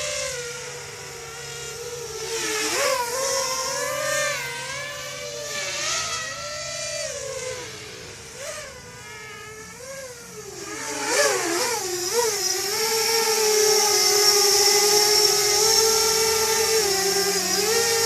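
DRS180Pro racing quadcopter's 2206 brushless motors whining in flight, the pitch swooping up and down again and again with throttle changes. From about twelve seconds in the whine becomes louder and holds steady.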